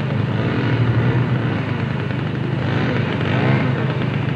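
Chainsaw cutting into a roof. Its engine runs steadily, and its pitch dips and rises again and again as the chain takes the load.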